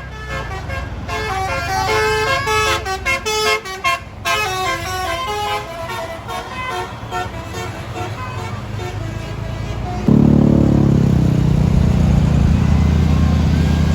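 Tour bus's basuri air horn playing a tune of quick stepped notes. About ten seconds in, a loud, low bus engine sound starts and drowns it out.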